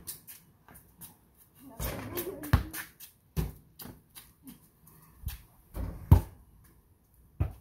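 A basketball bouncing on concrete: several separate thumps at uneven intervals, the loudest about six seconds in, with some scuffling of play around two seconds in.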